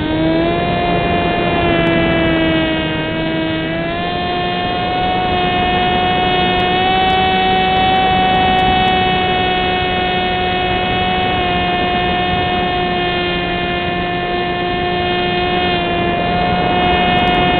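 Wing Dragon RC plane's electric motor and propeller running steadily in flight, heard from the on-board camera as a loud, even whine. Its pitch sags slightly a few seconds in and dips briefly near the end.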